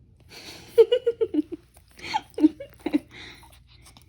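A woman laughing: a quick run of falling 'ha-ha' notes about a second in, then two shorter laughs.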